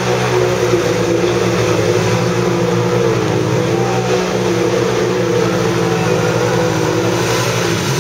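Two ATV engines running at high revs under heavy load as the quads plow through a deep mud pit, their pitch wavering up and down as the tyres dig and spin.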